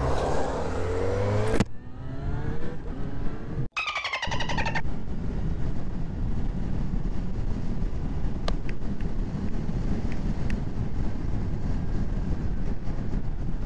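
Motorcycle engine revving hard under acceleration, its pitch climbing through the gears with breaks at the shifts. It then settles into a steady rush of engine, wind and road noise at riding speed.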